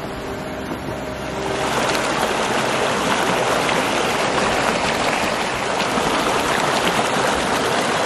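Background music for the first second or so, then Wolf Creek rushing and splashing over boulders: a steady, loud rush of flowing water.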